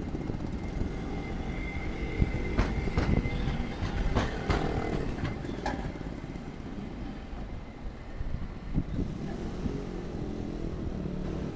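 Hankai Tramway tram no. 711 running past and pulling away on street track, with a low rumble from its running gear. Between about two and a half and six seconds in come several sharp clacks as the wheels run over the track work, and a thin whine rises in the same stretch.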